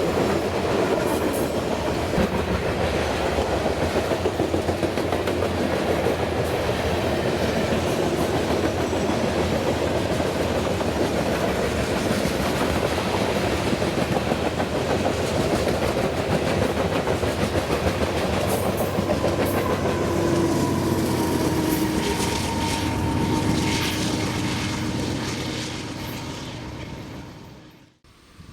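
Freight train passing close by: a steady rumble of railcars with rapid clickety-clack of wheels over the rail joints. A faint steady tone comes in about twenty seconds in, and the sound drops away sharply near the end.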